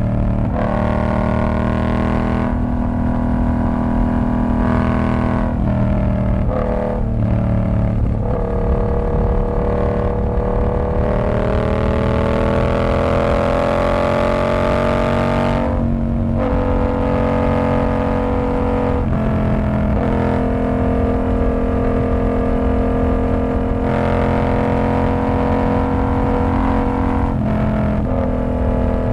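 Yamaha R7's parallel-twin engine through a TOCE exhaust with the dB killer removed, riding under load with a run of gear changes: the pitch holds or climbs and then drops at each shift. Near the middle comes one long pull with a steadily rising pitch, ended by a sudden drop.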